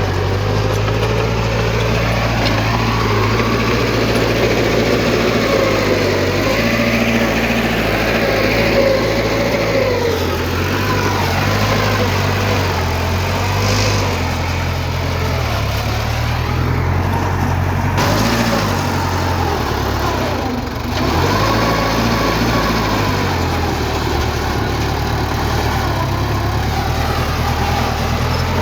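Diesel engines of heavy earthmoving machinery running steadily, their pitch rising and falling with load, with a brief drop in level about twenty seconds in.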